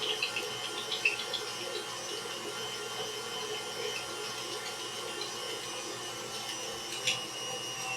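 Electric grinder motor running steadily while grinding duck and pork for sausage, a constant whine with a few light clicks, one about a second in and another near the end.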